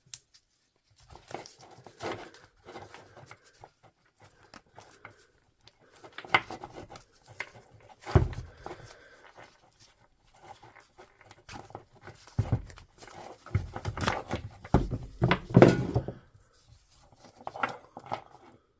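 Irregular clicks, scrapes and knocks of the small plastic and metal parts of a DeWalt DCH253 SDS hammer drill being handled while it is taken apart to get at its carbon brushes, with a few louder knocks in the second half.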